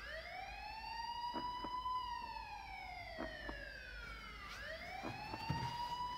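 Emergency vehicle siren wailing: its pitch rises over about two seconds, falls slowly, then starts rising again about four and a half seconds in. A few faint knocks sound over it.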